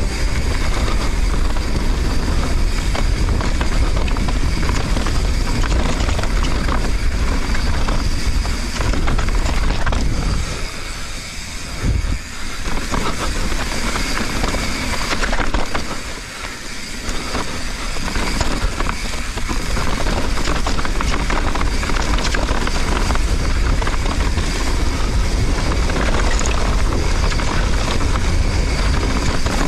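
Mountain bike descending a dirt trail: steady wind buffeting the action-camera microphone, with the tyres rolling and rattling over the ground. It briefly eases twice, about eleven and sixteen seconds in.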